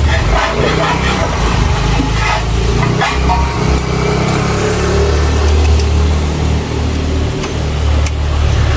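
A small engine running steadily at idle, its low hum starting abruptly at the outset and staying even throughout.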